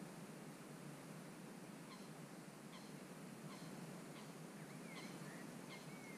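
Faint bird calls: short notes repeating about every three-quarters of a second from about two seconds in, with a few gliding notes near the end, over a steady low outdoor hiss.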